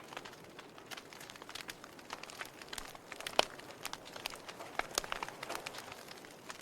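Wood fire crackling in a fireplace: irregular sharp pops and snaps over a soft hiss, with one louder pop about halfway through.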